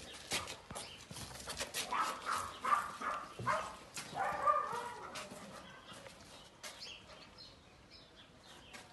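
Dogs whining in short, high cries, several times in the first five seconds, among sharp clicks and knocks; the sounds thin out after about six seconds.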